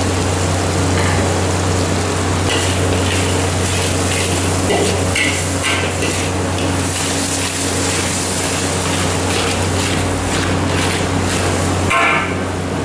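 Chili and shallot spice paste sizzling in a steel wok, with a metal spatula scraping and stirring it against the pan, over a steady low hum. The scraping strokes cluster in the first half.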